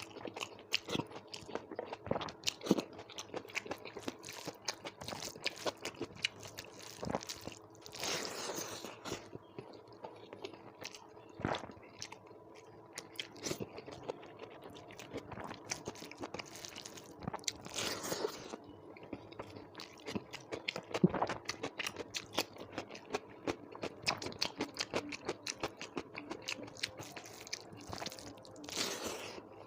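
A person chewing and crunching food with many short crackly clicks, with a few longer, noisier stretches of sound.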